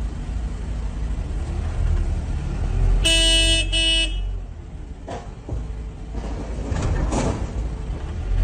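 A vehicle horn sounds in two short blasts about three seconds in, over a steady low engine rumble heard from inside a vehicle cab. Some rougher noise follows in the second half.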